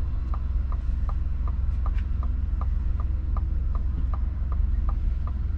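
2021 Ford F-150's cabin alert sounding a steady run of short electronic ticks, about two and a half a second, while Active Park Assist steers the truck. A low steady hum from the truck runs underneath.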